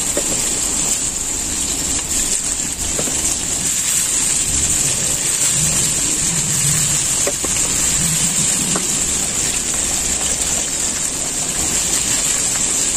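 Raw chicken wings sizzling in hot oil in a wok: a steady frying hiss, kept up as more wings are laid into the pan.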